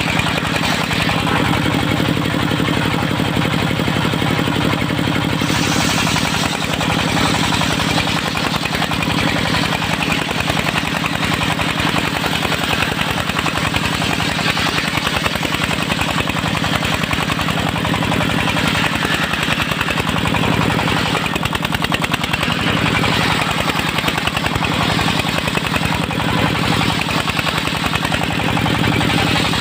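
Engine-driven circular sawmill rig running steadily: rapid, even engine firing pulses under a continuous hiss, which brightens a little about five seconds in.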